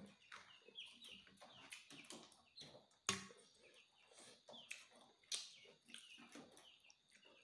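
Faint, repeated short high peeps, each falling in pitch, from birds in the background. A sharp metal clink of a ladle against a stainless steel bowl comes about three seconds in and again a little after five seconds.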